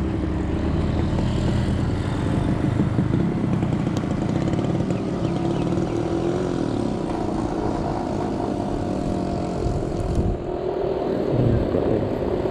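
Small engine running steadily, most like a motorcycle, its pitch shifting slightly; about ten seconds in it briefly dips and turns duller.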